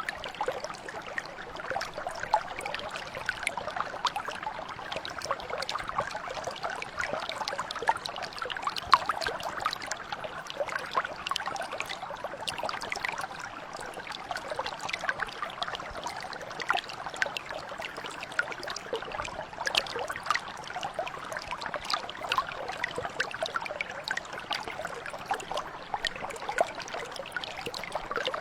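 Mountain brook flowing steadily: a constant rush of water with a dense scatter of small bubbling and splashing sounds.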